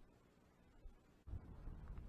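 Near silence, then a low rumbling noise starts a little over a second in and carries on.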